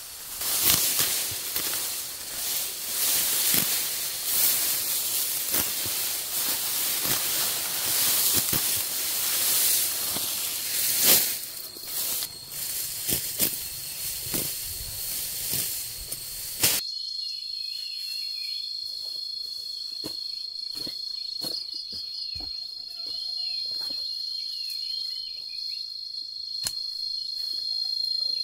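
A loud, steady hiss with scattered knocks and clicks, which cuts off abruptly about two-thirds through. What follows is a quieter background of insects trilling at a steady high pitch, with a few faint clicks.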